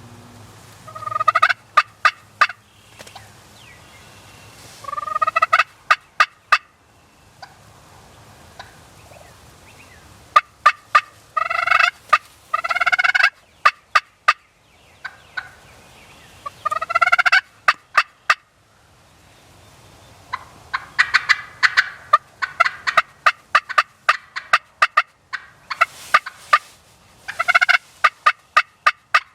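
Wild turkey gobbler gobbling repeatedly and loudly, about six rattling gobbles a few seconds apart.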